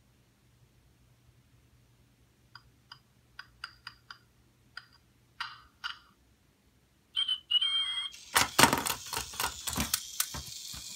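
Little Live Pets toy chick tapping from inside its plastic egg, a short series of light taps, then a brief electronic chirp. About eight seconds in the shell bursts open with loud clicking and clattering as the chick's walking mechanism runs and the toy tips over.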